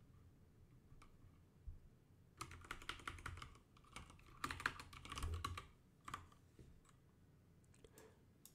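Faint computer keyboard typing: two short runs of rapid keystrokes, about two and a half and four and a half seconds in, then a few single key presses.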